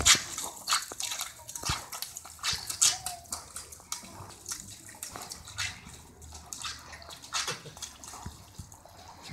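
Irish setter biting and lapping at the water spurting from a garden hose on wet pavement: irregular splashing and spattering, with bursts about every half second.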